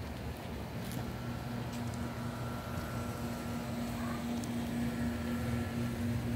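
A steady low hum over a wash of background noise.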